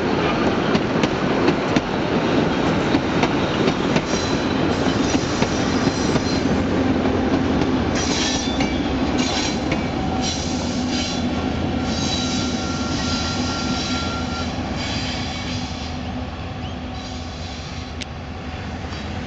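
Passenger carriages rolling past with their wheels clicking over rail joints and squealing on the rails. Diesel locomotive 958 at the rear of the train passes, and the rumble fades as the train moves away.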